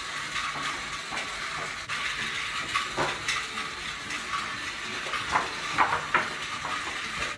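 A sheet of paper rustling and crackling as it is shaken about in a small child's hands, a few sharp crackles standing out near the end, over a steady hiss.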